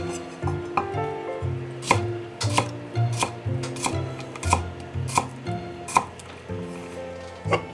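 Kitchen knife slicing daikon radish peel into thin strips, the blade knocking on a wooden cutting board in a series of chops about one and a half a second. Light background music plays underneath.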